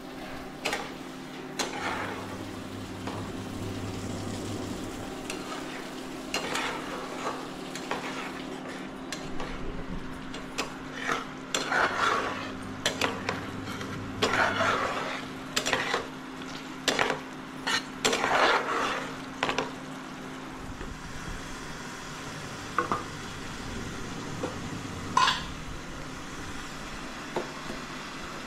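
Flat metal spatula stirring and scraping a thick curry frying in a pan, with a run of scrapes and knocks in the middle stretch. A steady hum goes on underneath.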